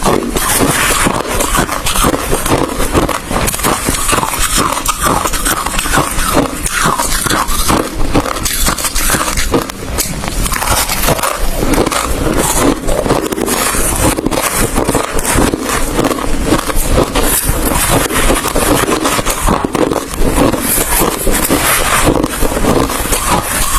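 Ice being chewed: dense, rapid, continuous crunching and cracking, close to the microphone.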